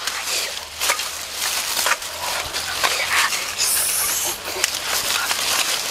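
Dry leaf litter crackling and rustling in dense, irregular crackles, with a brief high hiss about four seconds in.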